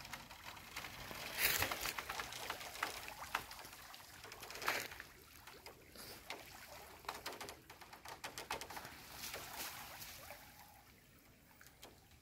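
Water sloshing and trickling off a bamboo-framed khora lift net as it is hauled up out of a shallow canal, with scattered sharp clicks throughout. Louder surges come about one and a half and nearly five seconds in, and the sound dies down toward the end.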